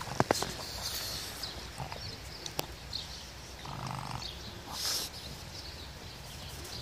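Pug snuffling with its nose pushed into the snow, with a few sharp crunches of snow near the start and a short burst about five seconds in.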